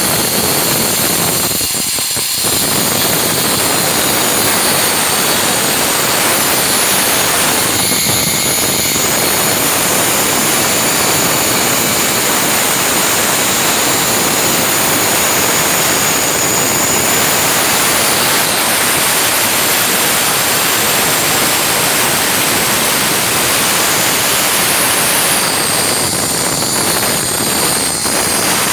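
Handheld electric stone cutter running under load as it cuts through a granite slab: a loud, steady high-pitched whine and grinding rush. The pitch of the cut dips briefly a few times as the load on the blade changes.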